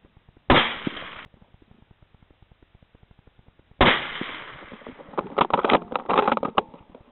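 Two .223 rifle shots, each a sharp crack with a decaying echo, about half a second in and nearly four seconds in; the first is cut short. A cluster of irregular sharp knocks and crackles follows the second shot.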